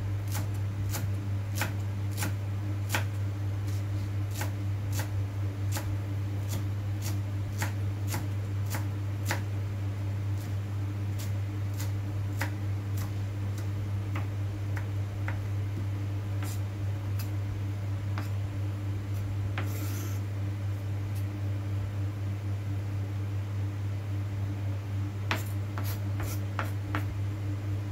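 Kitchen knife finely chopping fresh herbs on a cutting board: sharp taps of the blade on the board, about two a second, coming faster near the end. A steady low hum runs underneath.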